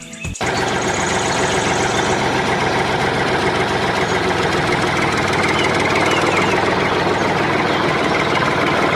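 A small motor running steadily at a constant speed. It starts suddenly just under half a second in.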